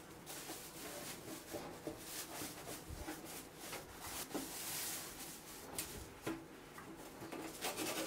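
Faint rubbing and scuffing of a cloth being wiped over the metal inside of a range hood, in a few short strokes with soft rustles.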